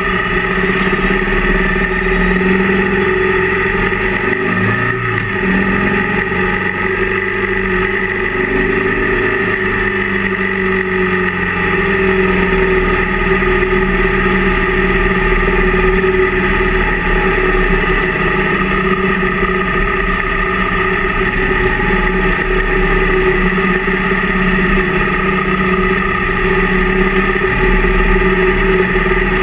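Motorcycle engine running steadily while riding, heard from on board the bike, with a short rise and fall in engine pitch about five seconds in.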